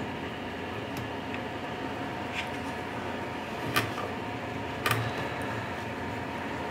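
Small metal clicks and taps from a nut, screw and screwdriver being worked on the exhaust manifold of a Super Tigre 45 model airplane glow engine, four in all, the two loudest a little under four and five seconds in. A steady faint hum runs underneath.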